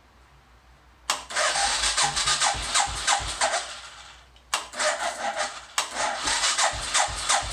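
Suzuki Savage 650's single-cylinder engine being cranked over on its electric starter after a carburettor cleaning, in two attempts: one about a second in that fades out, and another starting about halfway through. Each has a quick, regular beat of compression strokes.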